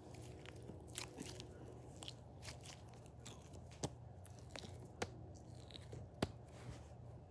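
Faint, irregular crackling and clicking from hands squeezing and handling a squishy stress toy, with a few sharper clicks in the second half.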